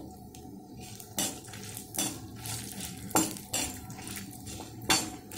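A metal spoon stirring dal in a kadai, scraping and knocking against the pan with a few sharp clinks about a second apart, as chana dal and urad dal are roasted in a little oil.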